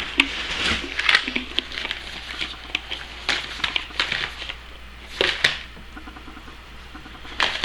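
Rummaging through spare parts and packaging: scattered light clicks and taps with crinkling, busier in the first few seconds, then a few louder taps about five seconds in.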